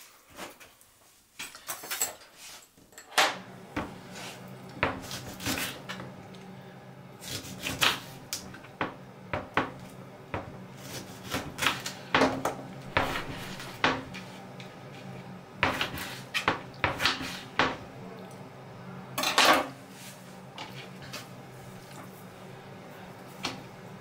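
Kitchen knife cutting a lemon on a cutting board: irregular knocks and taps of the blade and the lemon against the board, the loudest about three seconds in and again near twenty seconds. A low steady hum sits underneath from about three seconds in.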